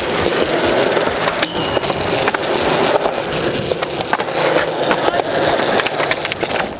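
Skateboard wheels rolling over a smooth concrete skatepark surface: a steady rolling rumble with scattered sharp clicks.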